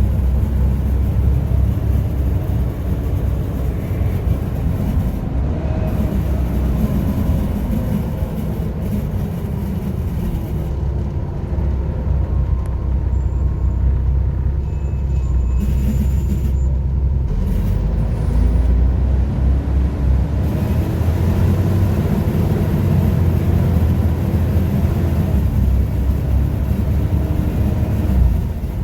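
Volvo B7TL bus's seven-litre six-cylinder diesel engine running under way, a low rumble whose pitch rises and falls several times as it pulls away and eases off.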